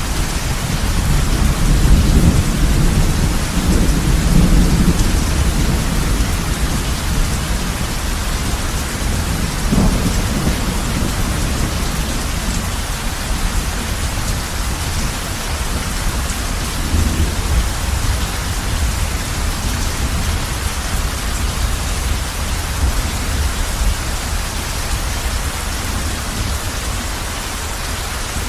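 Heavy rain falling steadily on a roof, with low thunder rumbling underneath, heaviest in the first few seconds and swelling again briefly about ten seconds in.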